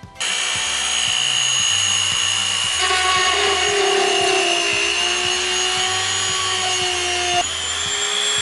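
Dremel rotary tool with a small drill bit, switched on and running with a steady high whine. About three seconds in a lower tone joins as the bit bores a hole through the plaque. Near the end the pitch steps up slightly as the bit is drawn out.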